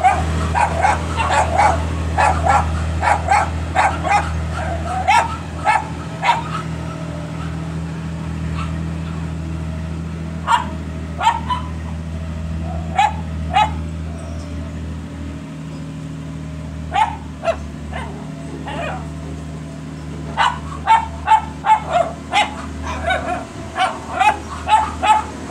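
A dog barking and yipping repeatedly in clusters of short barks. Under it runs the steady low hum of a heavy machine's diesel engine idling.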